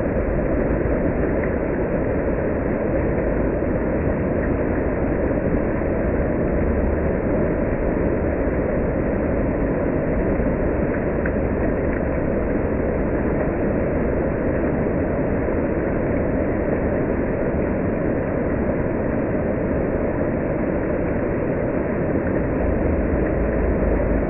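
Water fountain jets rushing and splashing as a steady, unbroken noise.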